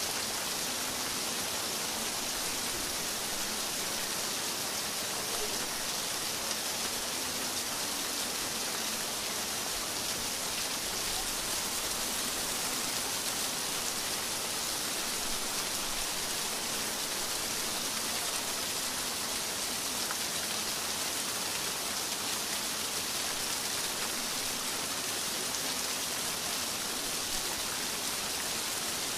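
Steady rain falling, an even, unbroken hiss of drops on surfaces.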